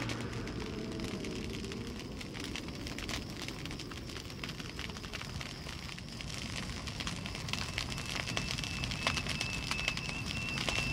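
Outdoor ambience picked up by a phone microphone while walking: crackling wind and handling noise with many small clicks. A faint, steady high-pitched whine joins about eight seconds in.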